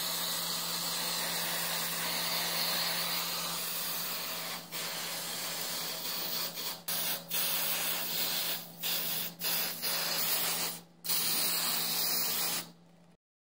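Aerosol spray-paint can hissing as paint is sprayed onto the blower housing parts: one long steady pass, then shorter bursts with several brief pauses in the second half, cutting off sharply just before the end.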